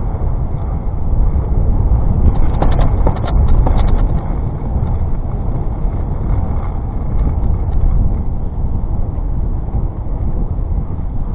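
Steady low wind rumble on the microphone of a moving bicycle, mixed with street noise. A quick run of rattling clicks comes about two to four seconds in.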